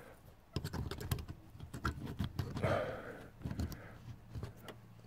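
Quick irregular clicks and taps of a small LED festoon bulb being handled and pushed into the metal spring contacts of a truck's plastic overhead dome-light fixture. The clicks come thickest in the first three seconds or so and then thin out.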